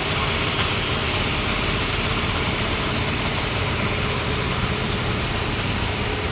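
An engine running steadily at an even pace, with a low rumble under a broad hiss.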